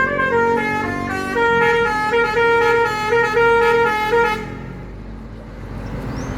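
Bus telolet horn: a set of musical air horns playing a quick tune of stepping notes, cutting off about four seconds in and leaving engine and road noise.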